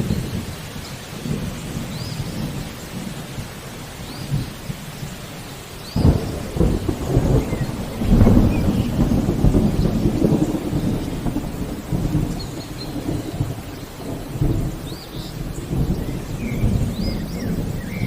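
Steady rain with a long rolling peal of thunder that breaks in suddenly about six seconds in, is loudest a couple of seconds later and rumbles on through the rest. Faint short bird chirps sound now and then above it.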